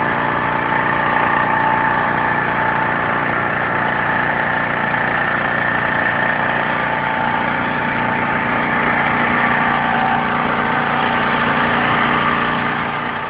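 Small petrol engine taken from a 600–800 W generator, running steadily at a constant speed while it drives a car alternator; the level drops a little near the end.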